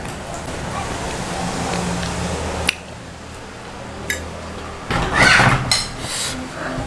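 Metal spoon and fork clinking a few times against ceramic plates while eating. A low steady hum runs for the first few seconds and cuts off suddenly, and a brief louder noise comes about five seconds in.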